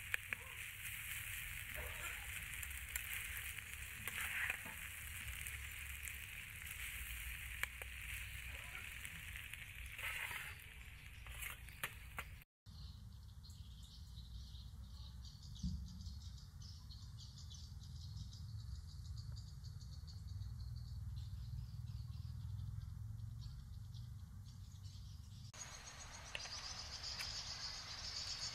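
Stir-fry of beef and vegetables sizzling in a frying pan while a slotted metal spatula stirs and scrapes it, with scattered clicks. About halfway through, the sizzling cuts off to a quieter, low steady noise. Near the end a high, even insect drone comes in.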